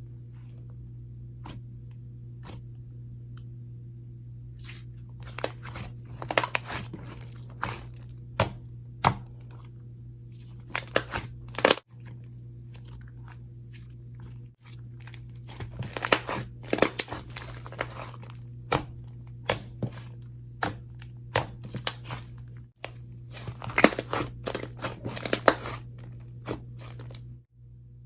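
Fluffy, inflated slime being stretched, pressed and poked by hand, giving clusters of crackly, tearing and crunching pops with single sharp clicks between them, over a steady low hum.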